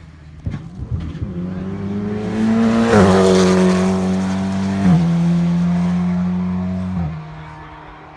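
A rally car at full throttle comes up the stage and passes. The engine note climbs steadily, then drops back at upshifts about three and five seconds in. The note falls away abruptly about seven seconds in as the driver lifts off.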